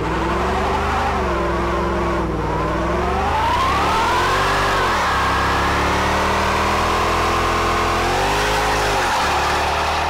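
Mercedes-Benz S63 AMG's V8 revving hard during a burnout while its rear tyres spin and squeal. The revs climb about three seconds in and dip briefly twice, near the middle and near the end.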